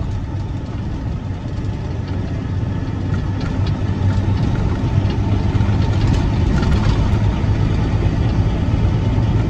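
Log truck's Detroit diesel engine running steadily, heard from inside the cab, growing louder about three seconds in. A few light knocks come through over it.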